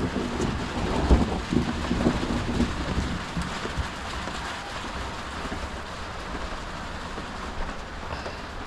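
Steady rain falling, an even hiss throughout. Low rumbling thumps are loudest in the first three seconds before the sound settles into the rain alone.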